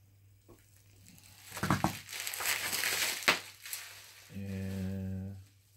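Plastic diecast-car packaging being handled: crinkling and crackling of the boxes and blister packs, with a couple of sharp clicks. Near the end comes a short, steady hummed voice sound.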